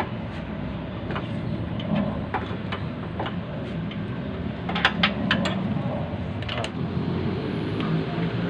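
Scattered metal clinks and knocks of hand tools and parts while an alternator is being fitted in a car's engine bay, several in quick succession about five seconds in, over a steady low rumble.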